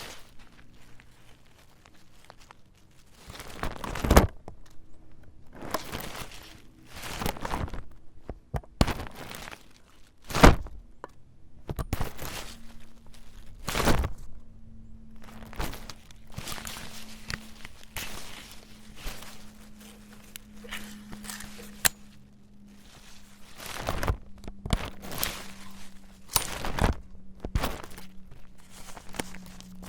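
An umbrella being handled: irregular clicks and knocks from its frame mixed with rustles of the canopy, with the sharpest snaps about four, ten and fourteen seconds in.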